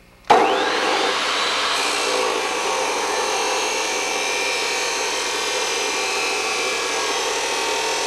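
Abrasive chop saw switched on about a third of a second in, its whine rising as the cut-off wheel spins up, then grinding steadily through steel angle iron.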